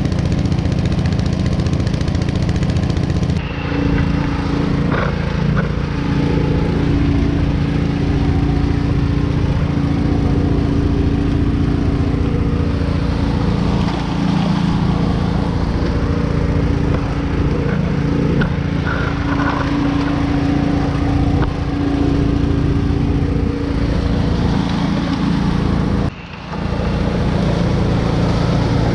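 Small petrol engine driving a dredge water pump, running steadily at constant speed. A few faint knocks and rattles come through now and then, and the sound dips briefly twice.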